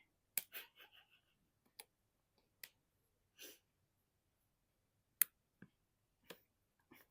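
Faint, scattered crinkles and clicks of a plastic snack packet being opened slowly and carefully to keep it quiet. There is a short rustle about three and a half seconds in, and the sharpest crackle comes about five seconds in.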